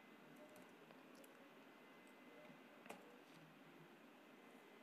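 Near silence: faint room hiss, with a single faint click about three seconds in.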